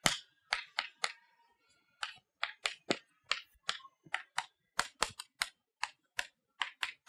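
Chalk tapping and striking against a chalkboard as an equation is written: a string of short, sharp, irregular taps, about three a second.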